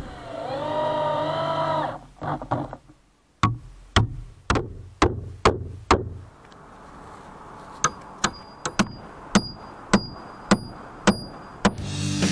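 Hammer driving nails into wooden rafters: a run of about six blows roughly two a second, then after a short pause a quicker run of about nine blows with a metallic ring. Near the start, a brief pitched whine that rises and falls.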